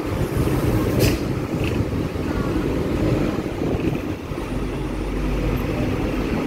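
Double-decker tram running along its tracks, heard from on board: a steady low rumble with a sharp clack about a second in.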